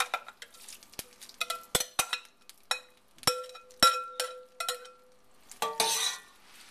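A metal spoon, a glass bowl and a stainless steel pot clinking together as chopped fresh tomato sauce is scraped out of the bowl onto spaghetti. There are a dozen or so sharp clinks, several ringing briefly, and a louder wet scrape of the spoon through the tomatoes near the end.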